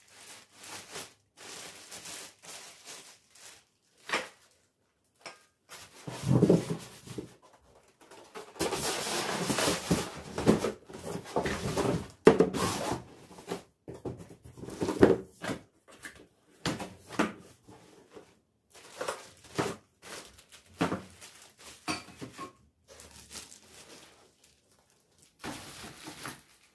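Household handling noises: irregular knocks, bumps and rustling, with a longer stretch of continuous scraping or rustling noise about a third of the way in.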